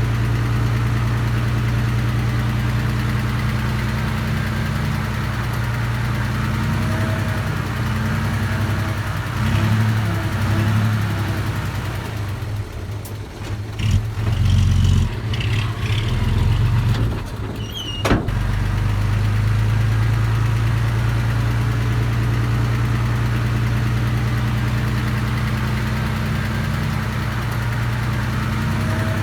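Engine of a small earthmoving machine running steadily. About halfway through it falters and varies for several seconds, ending in a sharp click, then settles back to steady running.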